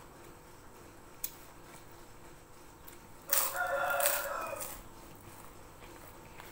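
A rooster crowing once, starting about three seconds in and lasting about a second and a half.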